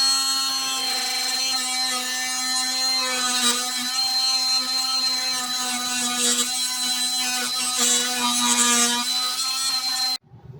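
Handheld power tool running at a steady pitch, with a hiss of it working into material. It cuts off abruptly near the end.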